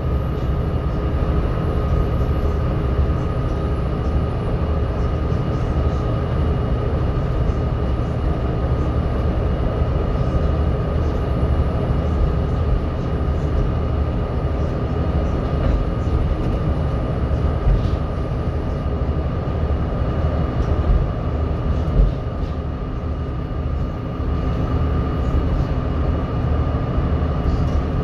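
Volvo B7TL double-decker bus's diesel engine and running gear heard from the upper deck at a steady pace: a constant low rumble with a steady high whine over it, typical of the engine's cooling fan, and a few interior knocks and rattles.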